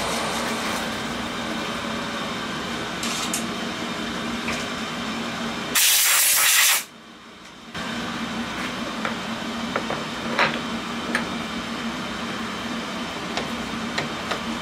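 Milling machine spindle running steadily with an end mill in a bronze part. About six seconds in, a loud hiss of compressed air lasts about a second, blowing the swarf away, and the spindle hum then carries on with a few faint clicks.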